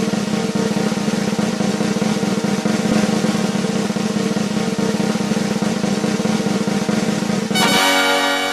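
Snare-drum roll sound effect that breaks off near the end into a held, horn-like chord.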